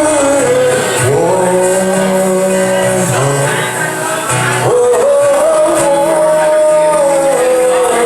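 Country music: a slow song with long held melody notes that slide between pitches, over guitar and a stepping bass line.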